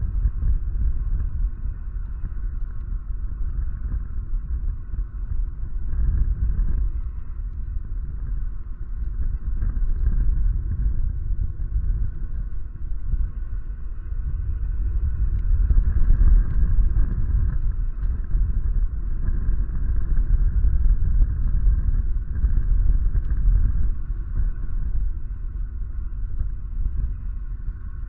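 Gusty wind buffeting an outdoor nest-camera microphone: a low, uneven rumble that swells and fades, loudest a little past the middle, with a faint steady hiss higher up.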